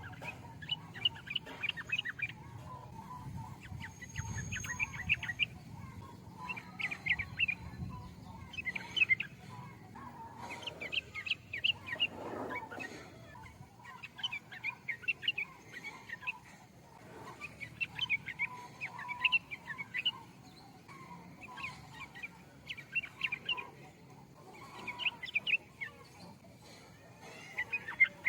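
Yellow-vented bulbul (trucukan) singing: short, quick chirpy phrases repeated about every two seconds.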